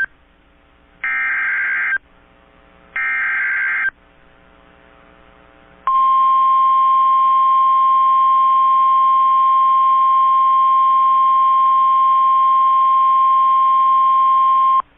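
NOAA Weather Radio emergency alert: two bursts of screeching SAME digital header tones, each about a second long, then about six seconds in the single steady 1050 Hz warning alarm tone held for about nine seconds and cut off abruptly. The alarm tone signals that a warning, here a tornado warning, is about to be read.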